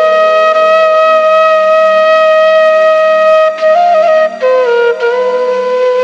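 Background music on a wind instrument, holding one long note over a steady drone, then stepping down to a lower note about four seconds in.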